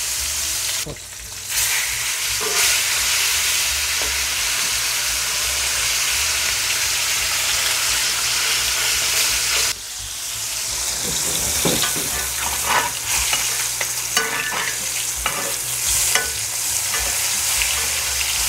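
Ribeye steaks sizzling hard in butter and fat in a cast iron pan, the fat edge held against the hot iron to render. From about halfway on, scattered light clicks of a metal spoon against the pan come through the sizzle.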